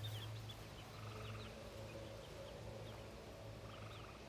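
Backyard chickens calling faintly: short high chirps now and then, and a couple of soft low clucks, over a steady low hum.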